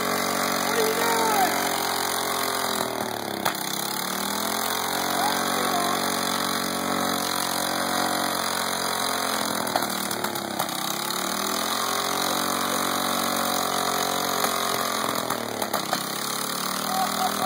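Small Snapper mower engine fed transmission fluid, running steadily and refusing to die. Three times its speed sags and then picks back up.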